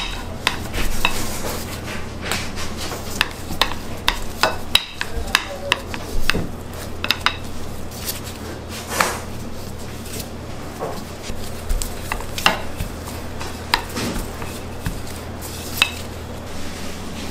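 Irregular clinks, taps and scrapes of kitchen utensils against bowls and dishes, over a steady low machine hum.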